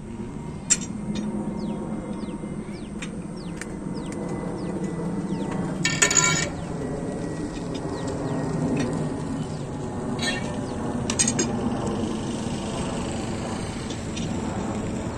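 Steady distant rumble of a Boeing 747 jet airliner flying high overhead. Birds chirp now and then, with a short sharp call, the loudest sound, about six seconds in.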